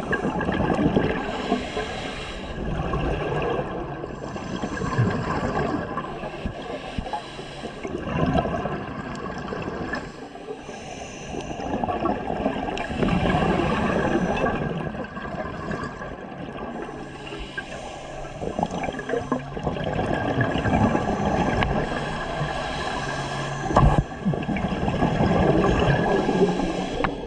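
Scuba diver breathing through a regulator underwater: hissing inhales and gurgling rushes of exhaust bubbles that rise and fall every few seconds. One sharp knock near the end.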